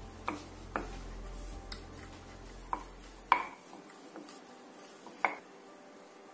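Kitchen utensils clinking against dishware while dough is worked: about five short, sharp taps spread out, the loudest a little past halfway. A low hum runs underneath and stops about halfway through.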